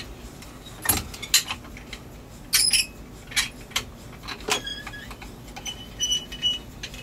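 Irregular sharp metallic clicks and clinks from the steel fittings of a wrench's tether rig strained by an MRI magnet's pull, with a brighter metallic rattle about two and a half seconds in and a couple of short high ringing tones near the end.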